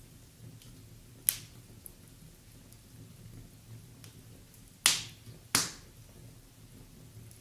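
Wood fire crackling in a fireplace: three sharp pops, one about a second in and two close together near five seconds, over faint small crackles and a low steady hum.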